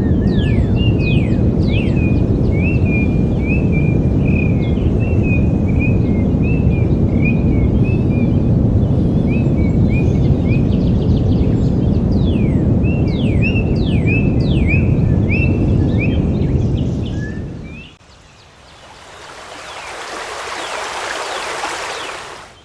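A steady low rushing roar with birds calling over it: a rapid series of short chirping notes and many quick downward-sweeping whistles. About three quarters of the way through, the roar fades out and a brighter hiss swells, then fades and cuts off.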